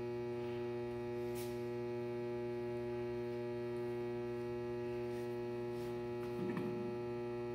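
Steady electrical mains hum, a low buzz with a stack of overtones that holds unchanged throughout, with a faint click about a second and a half in.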